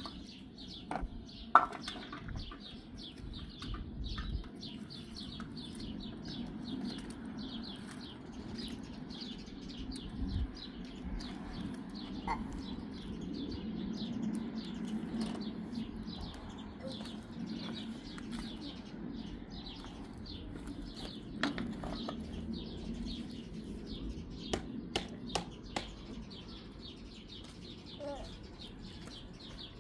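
Rapid, evenly repeated high chirping over a low steady hum, with a few sharp knocks; the loudest knock comes about a second and a half in.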